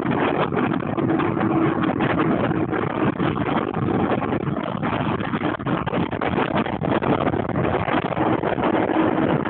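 Wind rushing over the microphone with a dense rolling roar and rattle during a fast downhill descent, with a faint steady hum underneath.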